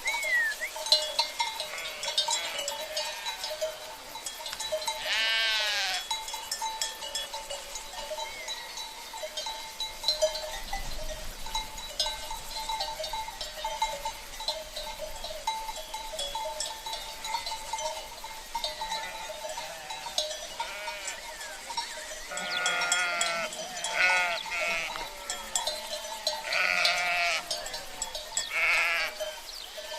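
Sheep bleating, one call about five seconds in and a cluster of bleats in the last third, over the steady clanking of livestock bells (cencerros).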